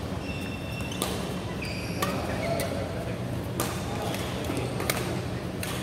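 Badminton rally: sharp racket hits on the shuttlecock roughly once a second, with short high squeaks of shoes on the court floor and a steady low hum underneath.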